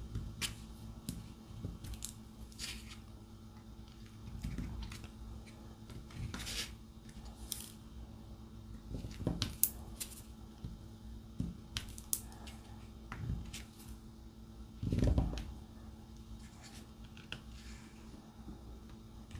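Diamond painting drill pen picking resin drills from a plastic tray and pressing them onto the canvas: scattered light clicks and ticks, with a louder rustling handling sound about fifteen seconds in.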